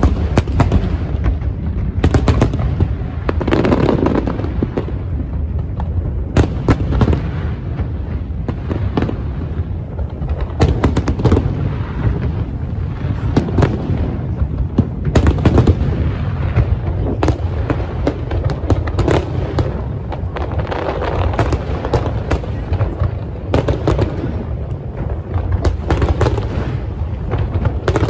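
A large aerial fireworks display: shells bursting in a steady run of loud, overlapping bangs over a continuous low rumble.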